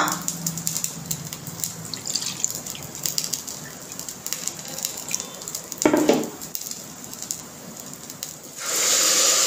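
Water poured from a bowl into a hot pressure cooker of roasted rice, a loud steady rush starting near the end. Before it, faint crackling from the hot cooker and a single knock about six seconds in.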